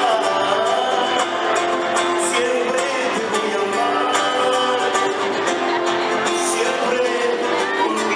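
Live performance of a Latin American song: a singer's voice over instrumental accompaniment with a steady beat.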